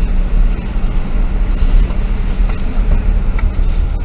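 Truck engine and road noise heard inside the cab while towing a fifth-wheel trailer slowly along a paved road: a steady low drone.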